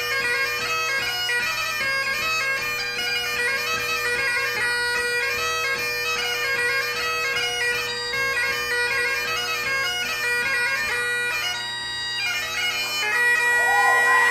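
Great Highland bagpipe played solo: steady drones under a quick, ornamented chanter melody. About twelve seconds in, the tune breaks off and ends on a held note as the audience starts cheering and whooping.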